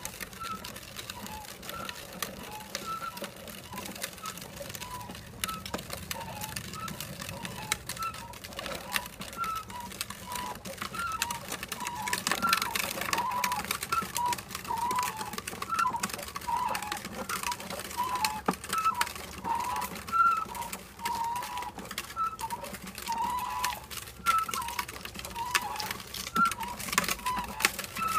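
Hard plastic wheels of a toddler's tricycle rolling over a concrete driveway, with a rattle of small clicks and a short high squeak repeated every second or so. The squeaks come faster and louder from about halfway through.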